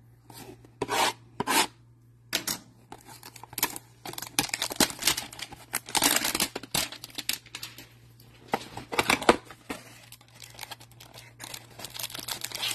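A cardboard trading-card hanger box being torn open by hand: two short rips about a second in, then a long run of irregular tearing, scraping and rubbing as the flaps are pulled apart.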